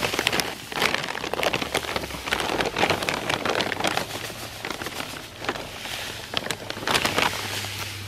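Play sand pouring from a plastic bag into a wooden casting flask: a hiss of falling grains with bag crinkling, coming in several surges as the bag is tipped.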